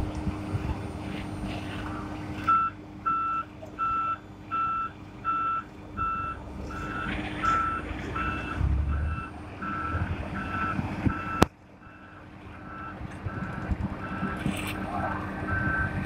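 Heavy construction machine's reversing alarm beeping at one steady pitch, about three beeps every two seconds, over a diesel engine running. The sound breaks off sharply about three-quarters through, and the beeping carries on fainter.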